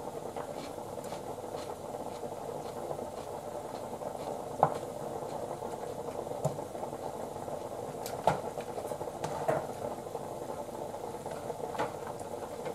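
Pot of cream stew boiling under its glass lid: a steady bubbling hiss. Light knife taps on a plastic cutting board in the first couple of seconds, then a few sharper knocks, the loudest about four and a half and eight seconds in.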